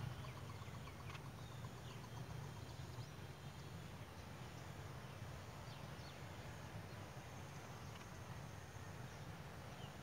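Faint forest ambience: a steady low hum under a light haze of background noise, with a few short faint high chirps from distant birds.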